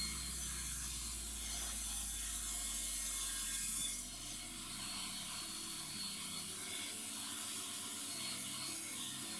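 Table saw blade cutting a sheet of acrylic (plexiglass), giving a steady high hiss. The sound drops about four seconds in and carries on more quietly.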